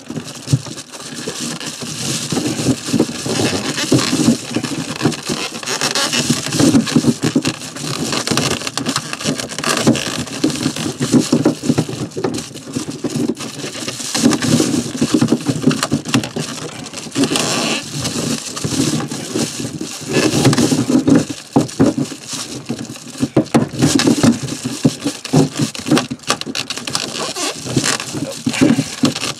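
Continuous irregular rustling, crinkling and scraping as a hand and sleeve work inside an RV underbelly against foil bubble insulation and plastic water lines, reaching up to loosen the nut on the shower drain fitting.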